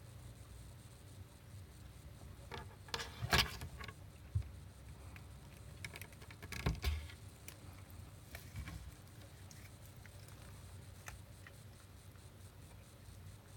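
Cats moving about and playing: soft pattering, scuffs and small light knocks in a few brief clusters, the loudest about three seconds in and again near seven seconds, over a faint steady hum.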